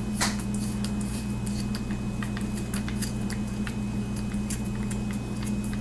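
Sunwayman F40A flashlight being unscrewed by hand, its threads giving small irregular clicks and scrapes over a steady low hum.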